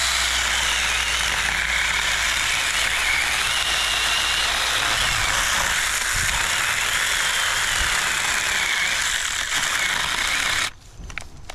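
Saker mini 4-inch cordless electric chainsaw cutting through a branch: a loud, steady chain rasp with a high motor whine that wavers a little in pitch under load. It cuts off suddenly near the end; the owner puts this down to the 20-volt battery giving out.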